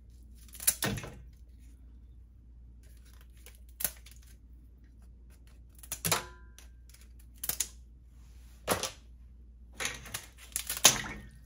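Kitchen shears cutting through raw crab shell and legs: a run of short, sharp snips and crunches, irregularly spaced about one to two seconds apart, with a cluster of them near the end.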